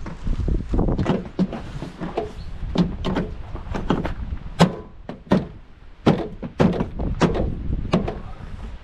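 Irregular knocks and thumps as the trim on the Subaru Forester's tailgate is pushed and tapped into place to seat its fastenings, more than a dozen in all, the sharpest about four and a half seconds in.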